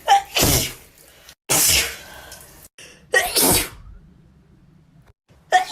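A person sneezing wetly, three times in quick succession, with a fourth sneeze starting near the end. Each is a sharp, sudden sneeze about half a second long, several begin with a short voiced intake, and there are brief quiet gaps between them.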